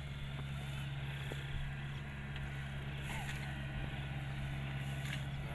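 Diesel farm machine engine running steadily at an even, low pitch.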